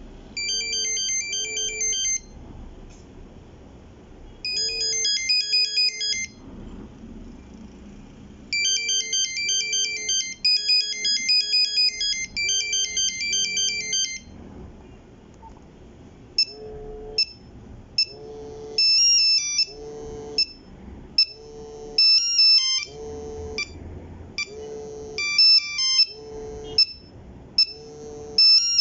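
Nokia 3310 playing its monophonic ringtones: beeped melody phrases with short pauses, changing to a different tune of shorter repeated beep groups about halfway through.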